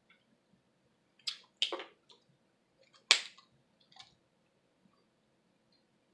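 Snow crab leg shells cracked and snapped apart by hand: three sharp cracks, the loudest about three seconds in, then a softer one and a few faint clicks.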